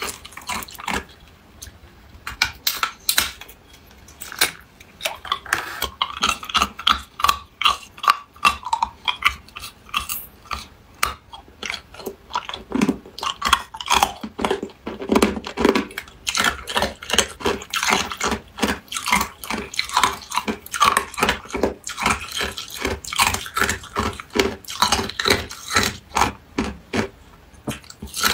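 Hard clear ice cubes being bitten and chewed, a long dense run of sharp crunches and cracks, several a second.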